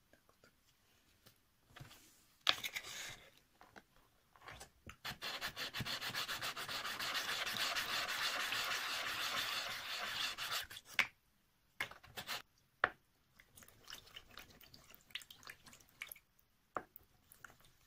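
Epoxy resin pendant being wet-sanded by hand on waterproof sandpaper under water: a run of fast back-and-forth scraping strokes from about five to eleven seconds in. Scattered light clicks and knocks come before and after it.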